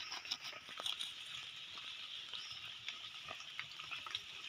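Faint rustling and small crackles of dry leaves and grass being handled while mushrooms are picked from the forest floor, over a steady high hiss.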